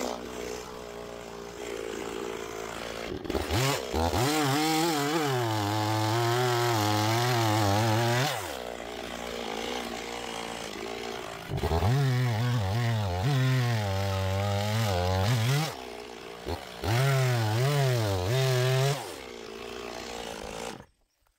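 Stihl MS 260 two-stroke chainsaw bucking an oak log. It idles, then goes to full throttle three times, its pitch wavering as the chain pulls down in the cut. Between cuts it drops back to idle, and it shuts off abruptly near the end.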